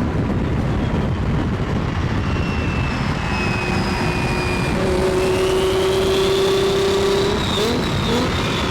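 Car engines running loudly over road or exhaust noise, with a high whine that rises about five seconds in.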